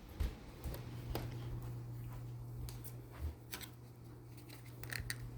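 Ceiling fan running on medium speed: a steady low motor hum, with a few light clicks and ticks scattered through.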